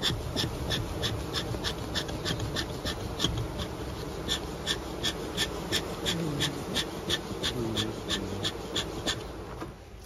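Beekeeper's smoker bellows pumped in a quick steady rhythm, about three squeaky puffs a second, blowing smoke into the hive to calm the bees before the honey harvest. A low rumbling hum runs underneath.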